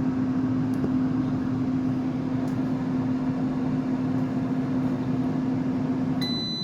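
Kenwood air fryer running, its fan giving a steady whoosh over a low motor hum. Near the end the fan stops and a steady high beep sounds, signalling that the 5-minute cooking cycle is finished.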